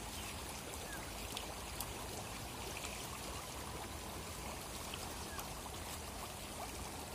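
Steady splashing and trickling of water churned by a dense crowd of hybrid magur catfish at the pond surface, with scattered small splashes.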